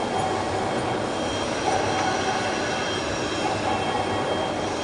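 A large metal lathe working a big steel hydraulic cylinder sleeve: a steady machining noise with faint high whine tones running through it.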